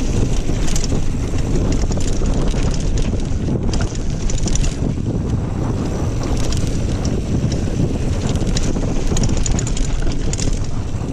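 Wind buffeting an action camera's microphone while a Kona Honzo ST hardtail mountain bike rolls along dirt singletrack, a steady low rumble. Over it come bursts of rattling and crunching from the tyres and bike over the rough trail, clustered at about one second in, around four seconds, and in the last few seconds.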